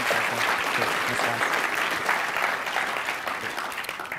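Audience applauding, a steady patter of many hands clapping that tails off near the end.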